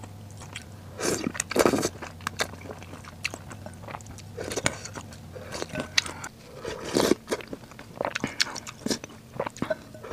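Close-up eating sounds of a person slurping and chewing luosifen rice noodles in broth: a few short slurps, the loudest about a second in and again around seven seconds, with small wet clicks of chewing in between.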